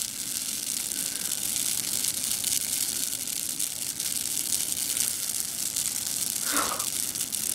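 Large pine-needle fire burning: a steady hissing rush with dense fine crackling.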